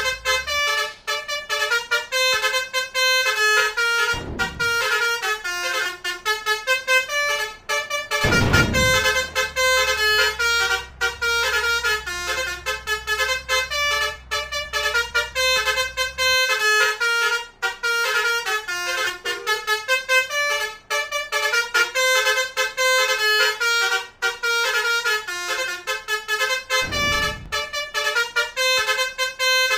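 Telolet basuri multi-trumpet bus horn playing a melody note after note without a break. There are a few low thumps, and a low rumble in the middle.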